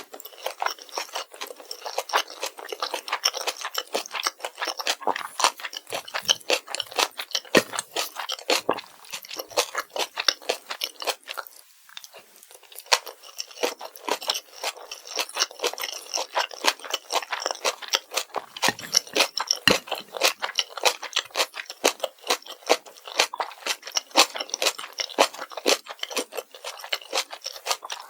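Close-miked eating of kimchi fried rice: fast, steady, wet chewing with crunchy crackles, easing off briefly about twelve seconds in before picking up again.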